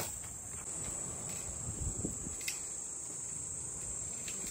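Insects trilling steadily in a high, unbroken drone over low rumbling background noise, with a couple of faint clicks.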